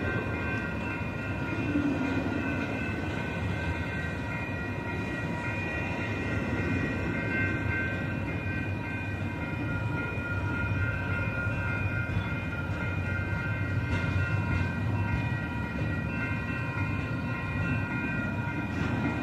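Double-stack container train of well cars rolling past at close range: a steady rumble of wheels on rail, with a constant high squeal of several tones together running over it.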